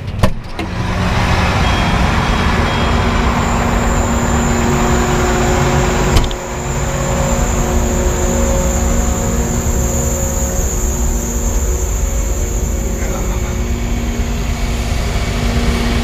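John Deere tractor engine idling steadily, with the sharp click of the cab door latch opening at the start and a single knock about six seconds in.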